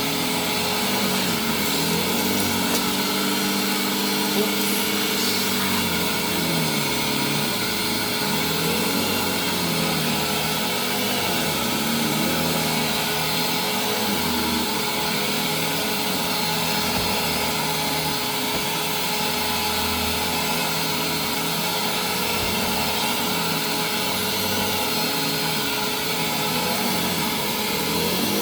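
Hoover WindTunnel vacuum cleaner running with a Eureka Express power nozzle attached: a steady whining hiss over a lower motor tone that wavers up and down in pitch every couple of seconds.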